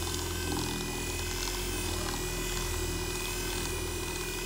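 WEN The Detailer 10-inch random orbit waxer running steadily, its electric motor humming with a steady whine as the bonnet buffs a jet ski's hull.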